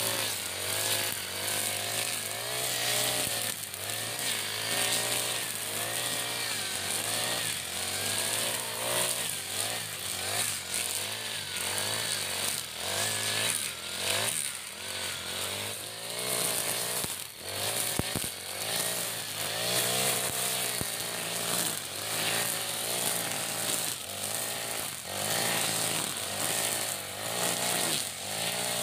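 iPower EH40 40 cc four-stroke backpack brush cutter running at high revs, its nylon-line trimmer head cutting grass and weeds; the engine pitch keeps rising and falling.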